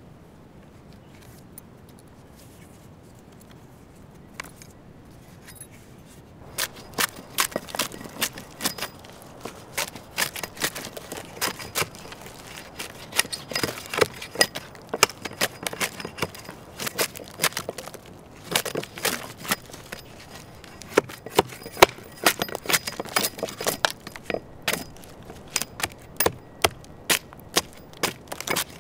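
Hand axe, a Helko Werk Black Forest Woodworker axe, striking a dead log in quick, short chops, two or three sharp knocks a second, starting a few seconds in.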